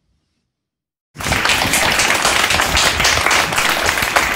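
Applause: many hands clapping fast and densely. It starts abruptly about a second in, after a moment of silence.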